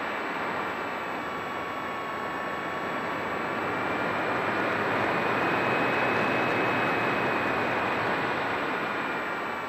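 Radio-controlled model airplane in flight, heard from its onboard camera: a steady whine from the motor and propeller over a rush of wind noise. The sound swells to its loudest around the middle and eases slightly near the end.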